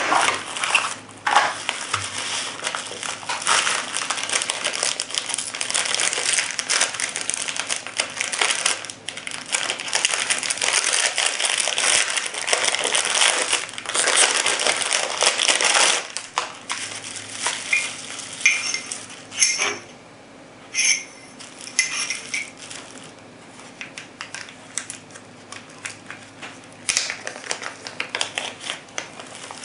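Plastic packaging being torn open and unwrapped by hand: a clear blister pack and bubble wrap crinkling and crackling densely for about the first sixteen seconds, then quieter, sparser rustling with small clicks and taps as the aluminum grip panels are unwrapped and handled.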